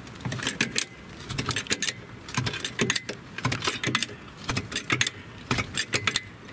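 Trolley jack being pumped to raise the car: a run of irregular metallic clicks and clanks from the handle and mechanism.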